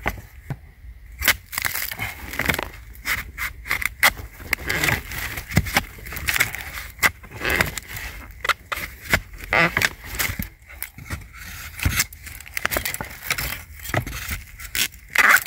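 Stiff sheaths of a wild bamboo shoot being peeled off by hand: an irregular run of crackles, rips and scrapes as the husk leaves tear away from the shoot.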